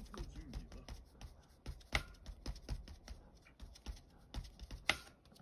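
Foam ink blending tool dabbed repeatedly onto a plastic stencil over paper: a run of soft, irregular taps, several a second, with two sharper taps about two seconds in and near the end.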